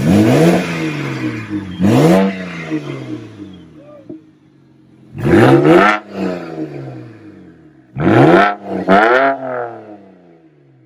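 BMW 335is twin-turbo inline-six revved in about five sharp throttle blips, the pitch jumping up and sliding back to idle after each. The blips come near the start, about two seconds in, a pair around five to six seconds and a pair around eight to nine seconds, heard at the exhaust tailpipe.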